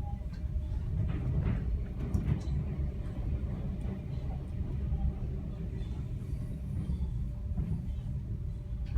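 Steady low rumble of a moving V set electric train heard from inside a carriage, wheels running on the rails with occasional light clicks. The carriage's air conditioning is off after a power failure in the trailing set, so no fan noise covers the running noise.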